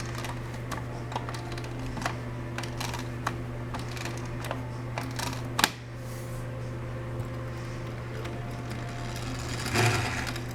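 Clockwork spring of a 1930s Marx tin wind-up toy car being wound with its key, a run of irregular ratcheting clicks. A sharp click about five and a half seconds in is followed by a quieter mechanical whirr as the motor runs on a weak spring.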